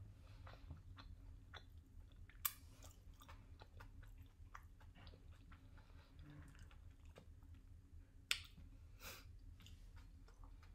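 Faint chewing of a seaweed-wrapped tuna triangle kimbap, with soft wet mouth clicks and a few sharper clicks, the clearest a couple of seconds in and about eight seconds in.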